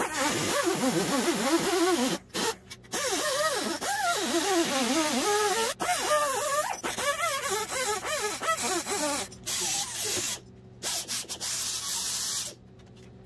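Ingersoll Rand cut-off tool's abrasive cut-off wheel grinding through metal in a run of passes, its whine dipping and recovering again and again as the wheel is pressed into the cut and eased off. It stops briefly a few times and drops off near the end.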